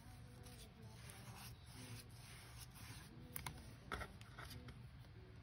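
Foam sponge brush rubbing a coat of liquid sealer over a glued vintage paper page, faint and scratchy. A couple of light taps come a little after the middle.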